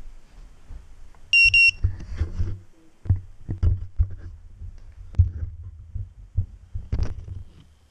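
Two short, high electronic beeps about a second in, followed by a run of irregular knocks and thumps over a low rumble as the body-mounted camera is jostled.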